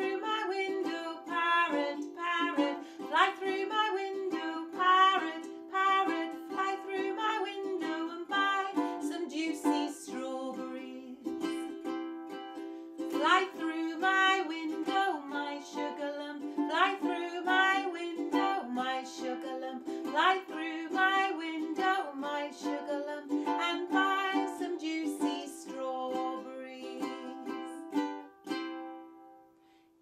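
A woman singing a simple children's song while strumming a ukulele; the song stops shortly before the end.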